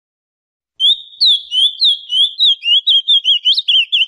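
Ultramarine grosbeak (azulão) singing: about a second in begins a loud run of clear whistled notes, each bending in pitch, that quickens as it goes.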